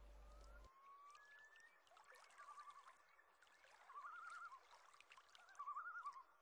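Common loons calling faintly: a quavering tremolo call comes three times, with short rising wail notes between, and there are scattered faint clicks. A steady hum cuts off under a second in.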